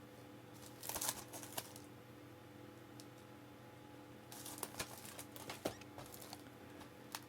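Faint handling noise of plastic Blu-ray cases: soft clicks and rustles about a second in and again in a cluster from about four to six and a half seconds, over a low steady hum.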